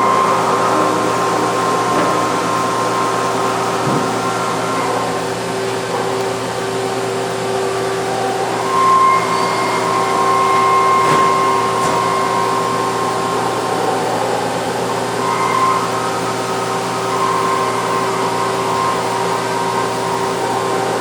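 Mazak QT Nexus 300 CNC lathe running through a program: a steady machine hum with a higher whine that comes and goes several times.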